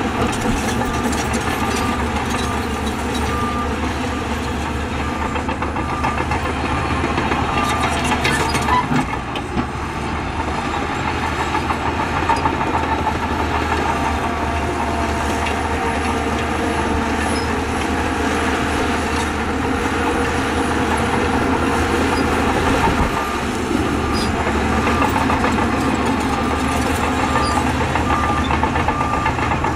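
Heavy diesel earthmoving machinery, a crawler bulldozer and dump trucks, running steadily under load, with a few clanks about eight to nine seconds in. A reversing alarm beeps evenly near the start and again near the end.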